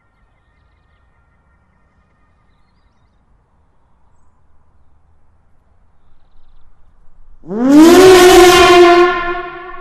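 AEOLUS rotor-and-stator siren, its stator ports twice as wide as the rotor ports, winding up. After a faint build-up, its tone sweeps quickly up to a steady pitch about three-quarters of the way in, loud and a bit harsh, with many overtones and a rushing hiss. It then drops in loudness while holding the same pitch.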